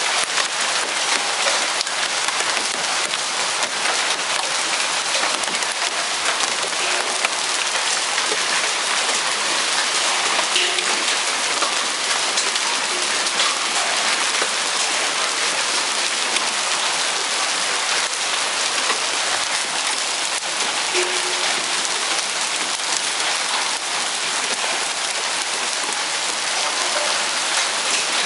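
Hail and heavy rain falling, a steady dense hiss made of countless small impacts.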